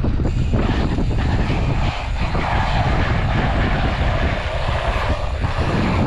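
Wind rumbling steadily on the microphone of a camera mounted on a moving bicycle, with a rushing noise from the bike rolling over asphalt that swells a little midway.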